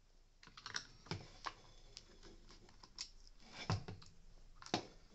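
Irregular light clicks and taps of a small screwdriver and loose screws against the plastic housing of a Dyson soft roller cleaner head as its screws are backed out, with two sharper knocks near the end.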